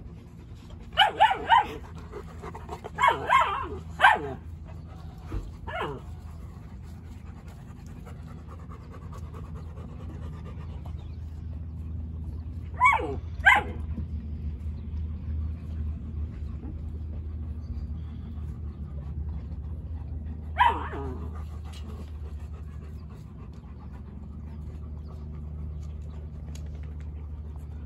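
Labrador retrievers barking in short, sharp calls: several in the first few seconds, two about thirteen seconds in, and one more about twenty-one seconds in. A steady low hum runs underneath.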